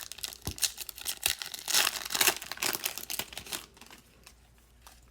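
A trading-card pack wrapper being crinkled and torn open by hand, a dense crackle that stops about three and a half seconds in.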